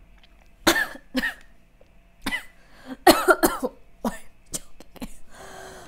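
A woman coughing and clearing her throat in a string of short coughs, bunched most closely about three seconds in, with a breathy exhale near the end.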